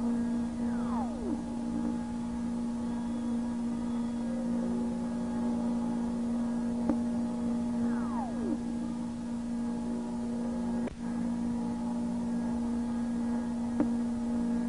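Sci-fi starship ambience sound effect: a steady electronic hum made of several held tones, with a quick falling chirp three times, about seven seconds apart, and a few faint clicks.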